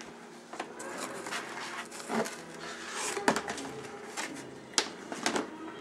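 Handling noise from a plastic tub and a cardboard shipping box: scattered clicks and knocks, the sharpest about three seconds in and again near five seconds, with rustling in between.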